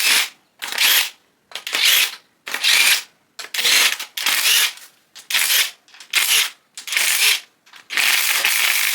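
Hand ratchet wrench worked back and forth on an engine bolt, a burst of rapid clicking on each return stroke, about one a second, with a longer run of clicking near the end.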